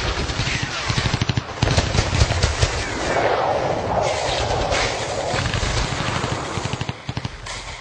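Rapid machine-gun fire, shots rattling in quick succession, with a brief break about one and a half seconds in.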